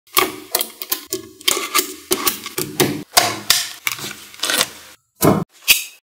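Small magnetic balls clicking together as they are pressed into place: an irregular run of sharp clicks, about four a second, with a short pause near the end.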